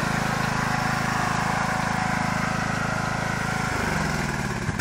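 Riding lawn mower engine running steadily as the mower is driven across the lawn, its note shifting briefly near the end.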